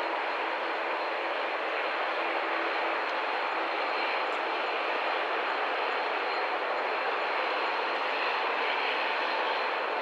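Jet airliner engines running, a steady roar with a thin high whine held over it.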